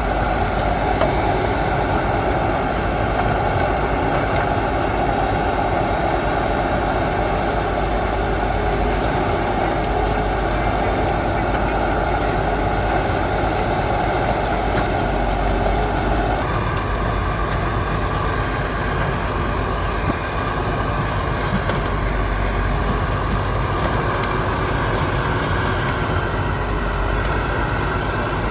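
Diesel engine of a backhoe loader running steadily as it works, its note stepping up abruptly a little over halfway through.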